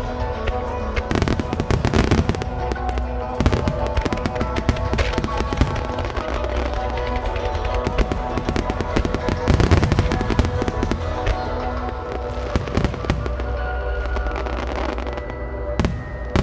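Aerial firework shells bursting overhead in quick volleys of bangs and crackles, thinning out near the end with one last sharp bang. Steady background music plays throughout.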